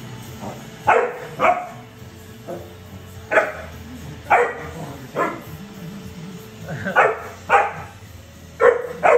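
A puppy barking repeatedly at a robot vacuum: about a dozen short, high barks at uneven spacing, several in quick pairs, with a lull in the middle. Background music plays underneath.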